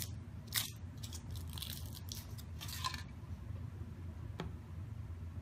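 Foil wrapper of a Kinder Surprise chocolate egg crinkling as it is peeled off by hand, in a few short crackles during the first three seconds, with a single light tick about four seconds in.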